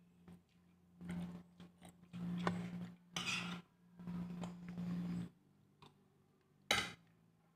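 Close-up eating sounds: chewing and wet mouth smacks as fingers pick at rice, in several short bursts, with one sharp smack near the end. A faint steady hum runs underneath.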